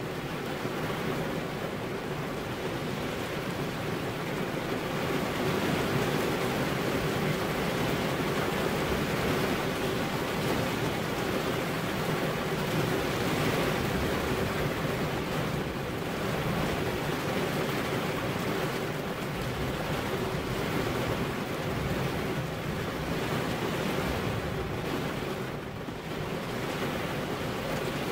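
Heavy rain falling steadily, an even hiss with no distinct thunderclaps.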